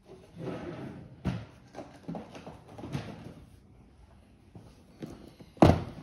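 Handling noises at a workbench: short rustles, light clicks and knocks as things are picked up and moved, with one loud thump near the end as something is set down.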